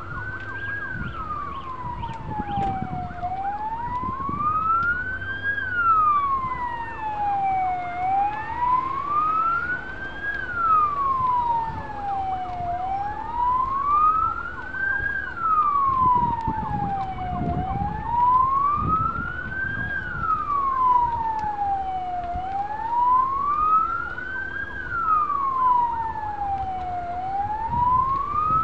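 Emergency vehicle siren in a slow wail, rising and falling in pitch about once every five seconds, repeating over and over. Low irregular rumbles sound underneath.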